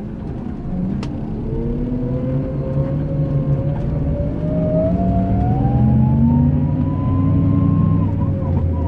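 Scania K380 IB coach's diesel engine running under load, with a whine rising steadily in pitch over several seconds as it grows louder. A single short click about a second in.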